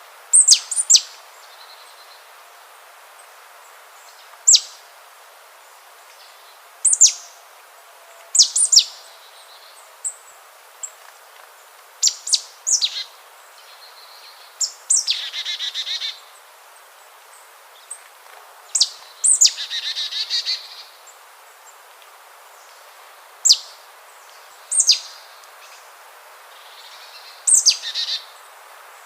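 A bird calling: sharp, high notes that fall steeply in pitch, singly or in quick twos and threes every second or two, with two longer buzzy, rasping calls about fifteen and twenty seconds in, over a steady hiss.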